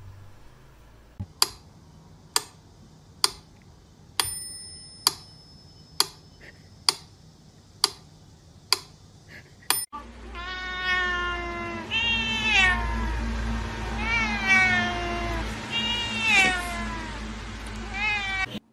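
A string of sharp clicks about once a second, then a domestic cat meowing loudly and repeatedly: about six drawn-out meows that bend up and down in pitch.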